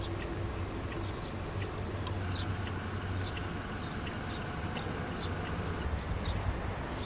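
Background ambience: a steady low hum with short, high chirps scattered through it.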